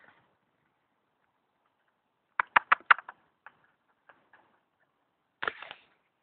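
Whippet puppies giving short, squeaky yips while they play-fight: four or five quick ones about two and a half seconds in, then another short cluster near the end.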